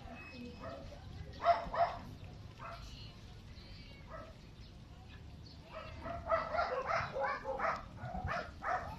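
A dog barking off-screen: one loud bark about a second and a half in, then a quick run of barks through the last three seconds.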